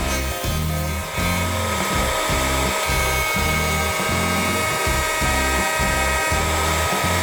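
Background music with a steady beat, about two beats a second, over a woodworking power tool running steadily.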